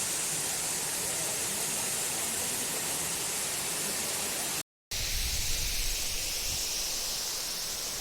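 Waterfall's falling water making a steady rushing noise. It cuts out for a split second a little past halfway, then returns with more low rumble underneath.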